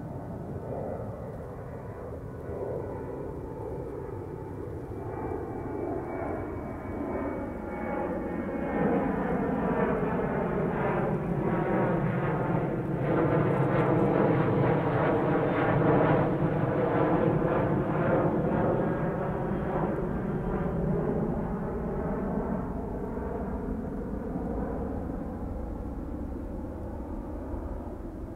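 Jet engines of a departing Southwest Airlines Boeing 737 climbing overhead. The noise swells to its loudest about halfway through as the airliner passes over, then fades as it climbs away. A thin high whine is heard early on.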